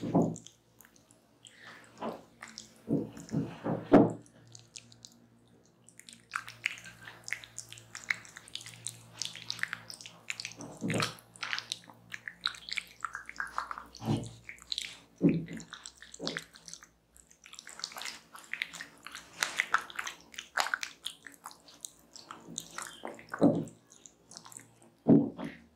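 Hands massaging mashed tropical fruit over bare skin: irregular wet squishing and crackling, with a few louder smacks now and then.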